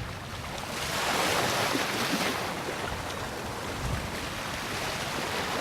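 Ocean surf from a single wave: a rush of water that swells about a second in and then slowly diminishes.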